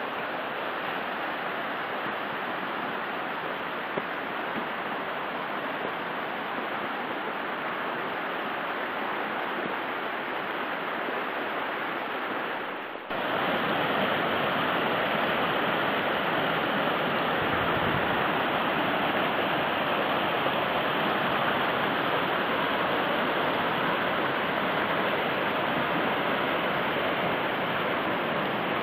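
Steady rushing water of a mountain stream. It dips briefly about halfway through and then comes back louder.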